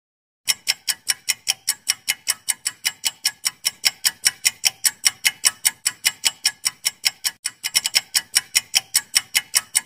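Ticking-clock sound effect for a quiz countdown timer: sharp, even ticks at about five a second, starting about half a second in, with a brief hitch in the rhythm near three-quarters of the way through.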